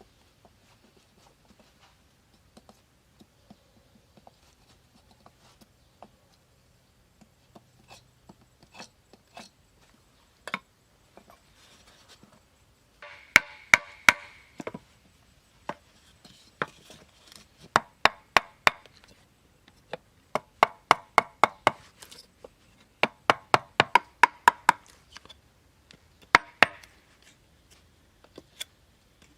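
Wood being chopped by hand with a bladed tool: sharp strikes that start out faint and scattered, then come in quick runs of four to six blows during the second half.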